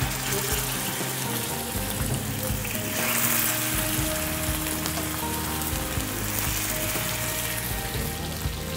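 Raw boneless chicken pieces sizzling as they fry in hot mustard oil in a frying pan. The sizzle gets louder about three seconds in, as more pieces go into the oil.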